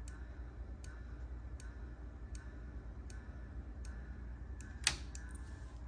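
Faint, even ticking from a Macintosh Classic's power supply, a little more than once a second over a low hum, with one louder click about five seconds in. This ticking is the supply cycling on and off, which he puts down to the logic board, seated the wrong way, possibly shorting out.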